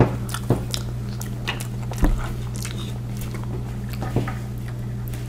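Chewing and biting of soft marshmallow Peeps candy, with a handful of short clicks and soft knocks spread through, over a steady low electrical hum.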